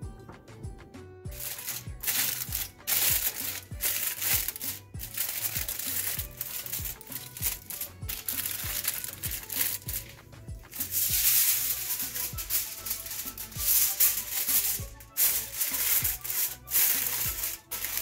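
Aluminium foil crinkling and rustling in bursts as it is spread and pressed down to seal a cooking pot, starting about a second in, over background music with a steady beat.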